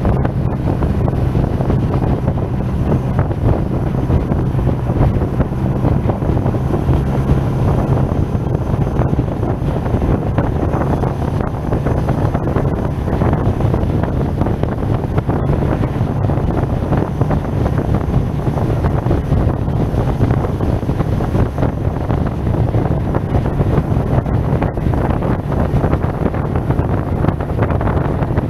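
Steady wind rush buffeting a helmet-mounted action camera's microphone on a moving maxi-scooter, with the SYM Maxsym TL 508's parallel-twin engine droning steadily underneath at an even cruising speed.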